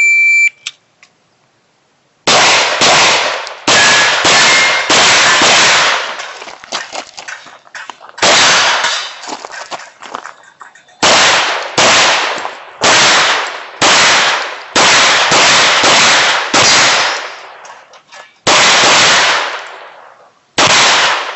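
Shot timer start beep, then a pistol fired in rapid strings of shots from about two seconds in, each crack trailing an echo, broken by short pauses for movement or reloads between target arrays: a practical-shooting stage being run.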